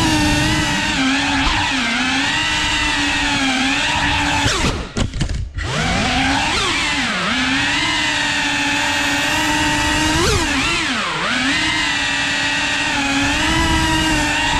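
Cinewhoop FPV drone's brushless motors and ducted propellers whining, the pitch rising and falling as the throttle changes. About five seconds in the throttle is briefly cut: the sound dips and its pitch slides down before it picks up again.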